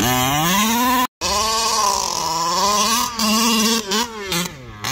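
Two-stroke petrol engine of a 1/5-scale HPI Baja RC truck with a tuned pipe, revving as it drives, its pitch climbing and falling with the throttle. A brief break comes about a second in, and the engine eases off near the end.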